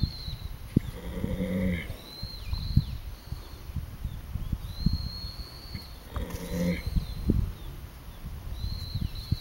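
A sleeping horse snoring: two snores about five seconds apart, each a pitched breath lasting about a second.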